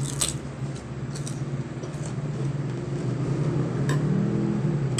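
Crunching bites into a raw white radish, sharp crunches near the start and a few more over the next seconds, with a spoon clinking on the plate near the end. A steady low hum runs underneath and grows louder in the second half.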